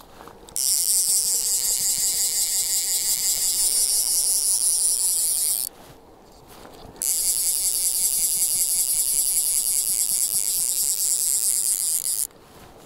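Fly reel's click drag buzzing rapidly as a hooked rainbow trout pulls line off the reel. There are two long runs of about five seconds each, the first starting about half a second in, with a short pause between them.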